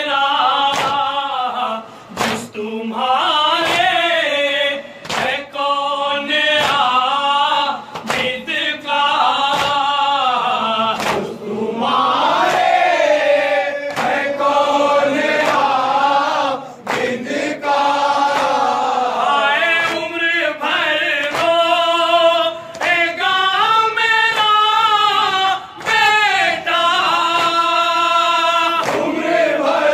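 Men's voices singing a Shia nauha (Muharram lament) together, unaccompanied and amplified through a microphone, in long held, wavering lines with short breaks for breath. A few sharp slaps of chest-beating (matam) come through now and then.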